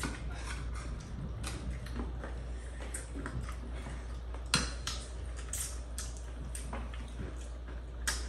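Kitchen utensils and dishes clinking and scraping in short scattered knocks, with a sharper clink about four and a half seconds in and another near the end, over a low steady hum.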